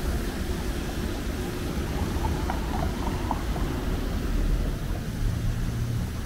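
Outdoor city street ambience: a steady low rumble of traffic and air noise, with a few faint short high sounds about two to three seconds in and a low hum joining about five seconds in.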